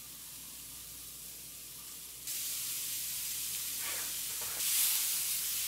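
Ground beef and chopped onions sizzling in a hot oiled frying pan, a steady frying hiss. The sizzle jumps louder about two seconds in and again near the end.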